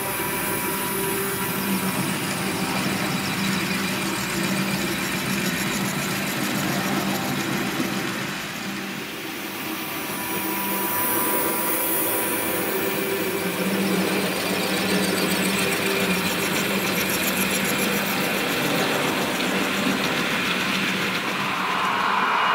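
Roco TT-scale model train, double-headed, running along the track: a steady hum from the locomotive motors and rolling wheels, with a high hiss over it.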